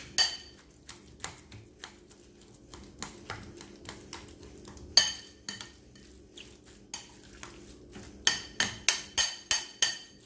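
Metal utensil clinking against a glass mixing bowl while stirring a mash of crushed tofu and egg. The clinks are scattered at first, then come in a quick run of about four a second near the end.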